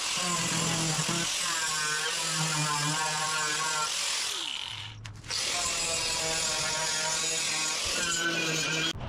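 Hot air gun blowing steadily while old paint is stripped from a VW Beetle wing, with a pitched background sound over it. The gun drops out briefly about halfway through and comes back.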